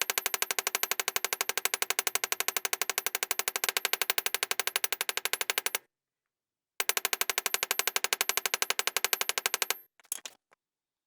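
Rapid, even run of mechanical clicks from a woodworking tool. It stops about six seconds in and starts again a second later for about three more seconds, and ends with a brief faint rattle.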